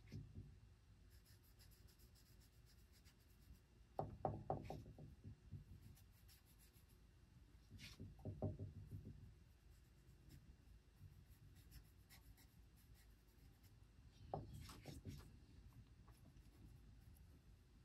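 Near silence: faint scratching of a small paintbrush laying paint onto a lure body, with a few soft handling bumps about four, eight and fifteen seconds in.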